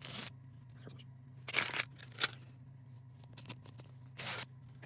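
Plastic wrapping crinkling and tearing in several short rustling bursts as a Mini Brands capsule ball is unwrapped by hand.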